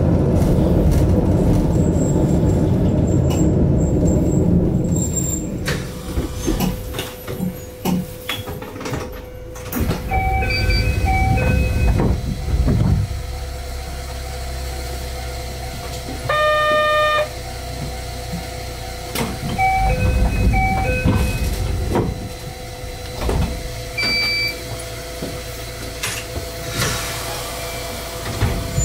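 Narrow-gauge Yokkaichi Asunarou 260 series train's running rumble dies away as it comes to a stop about six seconds in. It then stands with a steady electrical hum, short electronic beeps, one longer buzzer tone about halfway, and occasional clicks from the cab.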